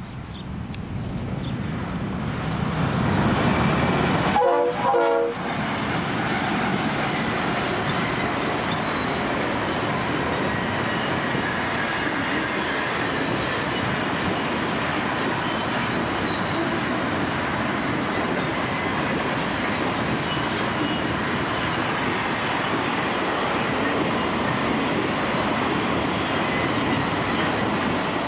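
Freight train passing close by: a set of Santa Fe GE diesel locomotives goes by loudly over the first five seconds, then a long steady rolling rumble of empty auto rack cars on the rails.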